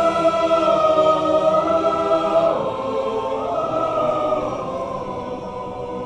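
A choir singing held chords, the voices moving slowly from one chord to the next and growing gradually softer toward the end.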